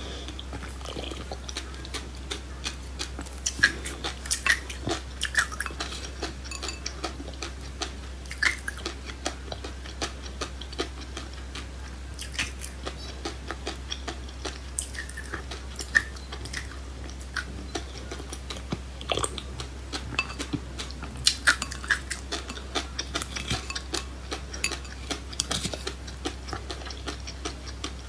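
Close-up chewing and crunching of seeds: a dense run of small, irregular crackles and clicks over a steady low hum.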